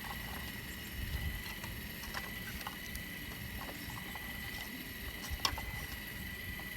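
Caterpillar digging machine running steadily, with a low rumble and a steady high whine, while scattered clicks and knocks of broken shale come through; one sharp knock about five and a half seconds in.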